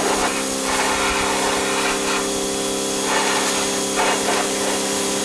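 Pressure washer running, its high-pressure spray hissing against a boat hull to strip off algae growth. The hiss swells and fades every second or so as the wand sweeps, over a steady hum.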